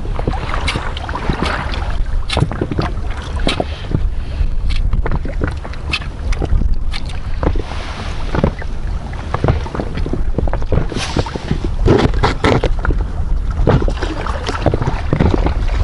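Wind on the microphone with small waves slapping and knocking irregularly against the hull of an inflatable PVC boat.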